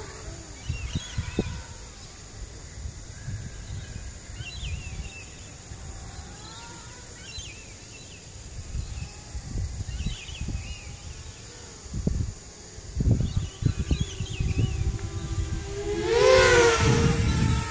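A 250-size FPV racing quadcopter flying, its motors whining and shifting in pitch up and down with the throttle. Gusts of wind buffet the microphone. The whine gets loudest near the end as the quad passes close.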